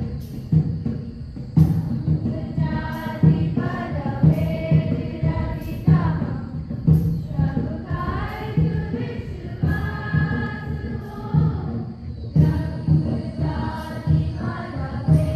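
Group of voices singing a school assembly prayer song in chorus over a steady drum beat of about two strokes a second, with a crisp metallic stroke recurring every second or so.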